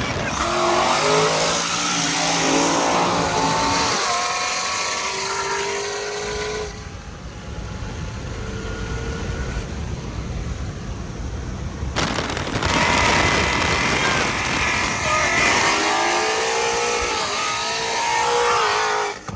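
Car engines accelerating hard, their pitch climbing again and again as they rev up through the gears, with tyre noise. The sound is loud at first, eases for several seconds, then comes back loud about twelve seconds in.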